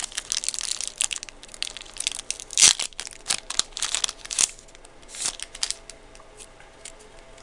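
Foil Yu-Gi-Oh booster pack wrapper being crinkled and torn open: a quick run of crackles and rustles that thins out after about six seconds.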